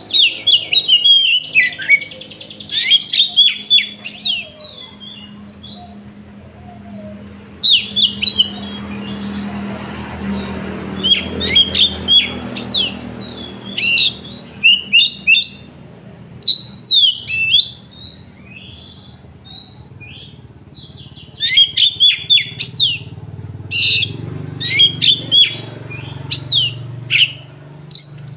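Oriental magpie-robin (kacer) singing loudly in bursts of fast, sharp whistles and rapid up-and-down sweeping notes, with short pauses between phrases. A faint low hum runs underneath.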